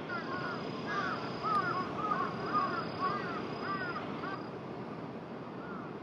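Several crows cawing, many short caws overlapping in quick succession, which die away about four seconds in, over a steady outdoor background hiss.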